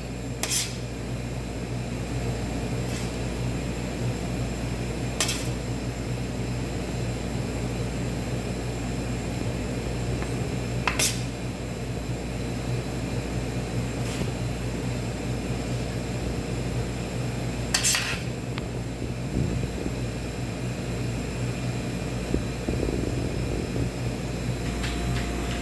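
Four short, sharp clinks of tableware, spread several seconds apart, over a steady low hum of kitchen background noise.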